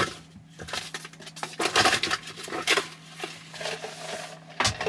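Small objects clattering and rustling as a hand rummages through the Tesla Model Y's centre-console storage bin, a run of irregular clicks and knocks with a louder knock near the end.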